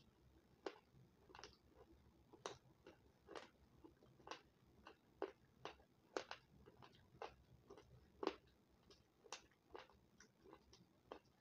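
Close-up crunchy chewing of a hard, crumbly white food. There are irregular crisp crunches, about two a second, over near silence.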